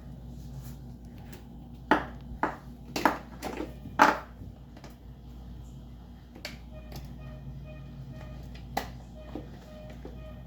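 Sharp plastic clicks and knocks as clips on an electric fan's plastic housing are worked loose. A quick cluster comes about two to four seconds in, the loudest near the end of it, and a few single clicks follow.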